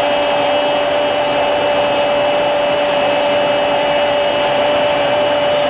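Stadium crowd cheering after a goal, heard as a steady wall of noise with a single steady tone held through it.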